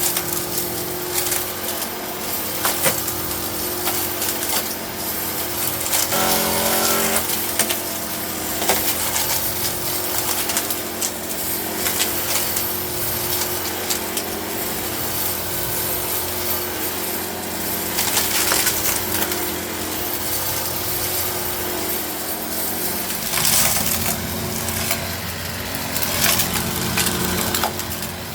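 Eureka Innova NEU700 upright vacuum cleaner running with its brushroll on carpet, sucking up aquarium gravel: a steady motor hum under a dense, irregular crunch and rattle of small stones. The motor's note changes somewhat after about 23 seconds.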